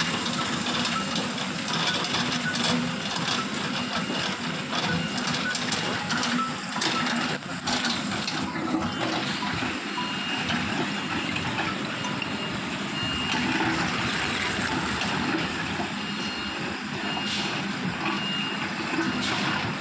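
Road traffic noise with a steady rush of passing vehicles, with short high beeps repeating several times in the second half.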